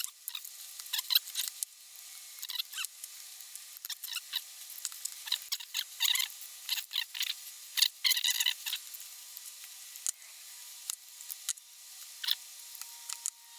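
Small metal parts of a Morris Minor handbrake lever clicking and scraping by hand as the release pawl is worked into place against the ratchet; irregular light clicks, with a denser rattle about eight seconds in.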